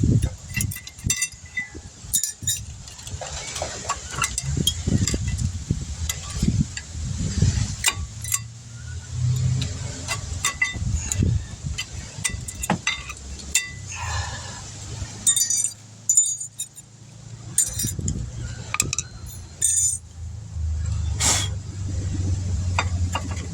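Intermittent metal clinks and knocks of hand tools and brake caliper parts being worked on, over a low background rumble.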